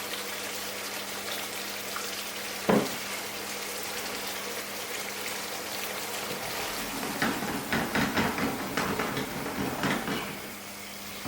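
Curry base sauce sizzling in a pan on high heat. A single sharp knock comes about three seconds in, and a run of clatters and scrapes of pan and utensil comes in the last few seconds.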